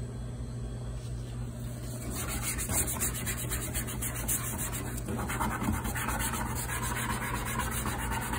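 Green scouring pad scrubbing the red painted-metal control panel of a Vulcan commercial range, in rapid repeated strokes that start about two seconds in. A steady low hum runs underneath.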